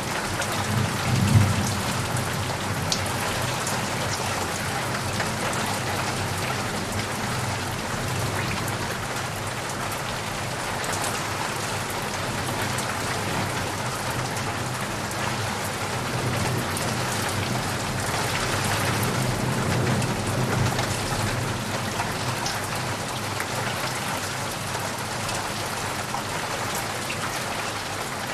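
Heavy rain falling steadily on leaves and puddles, with low rumbles of thunder: a short one about a second in and a longer swell about two-thirds of the way through.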